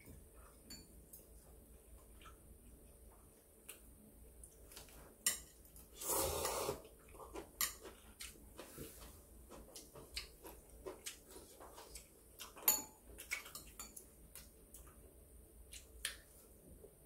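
Table-eating sounds: metal chopsticks clicking and scraping against ceramic bowls and plates in scattered light taps, with one sharper click about twelve seconds in. A short, louder noisy sound lasting under a second comes about six seconds in.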